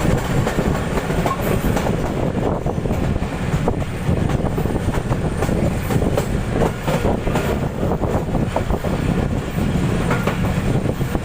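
Passenger train rolling past at slow speed: a steady rumble of the coaches, with irregular clicking of the wheels over the rail joints.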